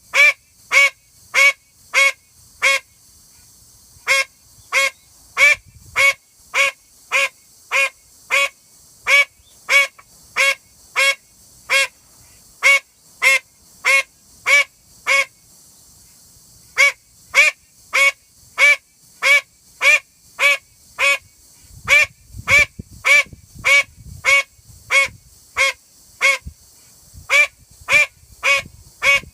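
Female call duck quacking loudly over and over, short sharp quacks at about two a second in long runs, broken by a few brief pauses.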